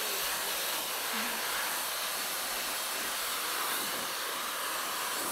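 Jellyfish handheld pet dryer blowing air steadily, an even hiss of rushing air.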